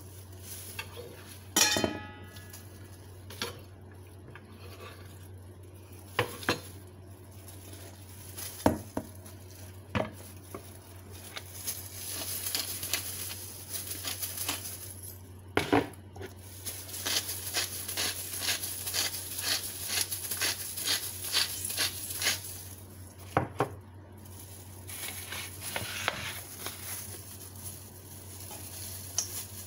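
Stainless steel mixing bowl and utensils handled while mixing a pork marinade: scattered clanks and taps, one ringing briefly near the start, then a run of quick, regular mixing strokes, about three a second, in the middle. A steady low hum underneath.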